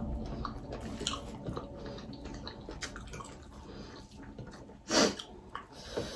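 Mouth and hand sounds of eating by hand: chewing and small wet clicks as rice and curry are mixed on plates with the fingers and eaten, with one louder short burst about five seconds in.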